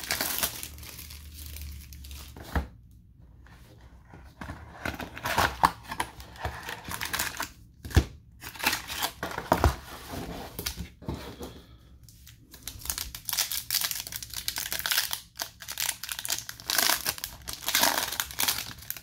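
Plastic shrink-wrap and foil trading-card pack wrappers crinkling and tearing as a card box is unwrapped and a pack is ripped open, with a few light knocks. The crinkling grows busier in the last several seconds.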